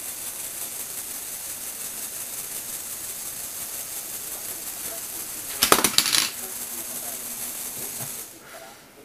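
Lego Technic motor and gear train running the rotating incline platform, a steady hissing whir that stops about eight seconds in. A burst of sharp clicks and rattles about six seconds in is the loudest part.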